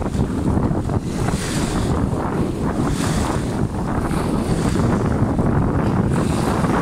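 Wind buffeting the microphone in a steady low rumble over choppy sea water lapping and splashing, the hiss of the water swelling every second or two.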